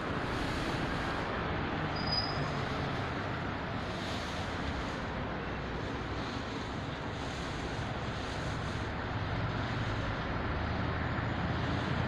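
Steady street traffic noise with a low engine hum that grows a little stronger near the end.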